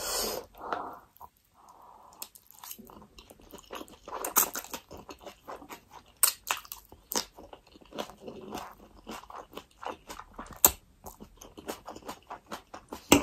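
Close-miked eating sounds: noodles of spicy ramen slurped in and chewed, with many short wet mouth clicks and smacks.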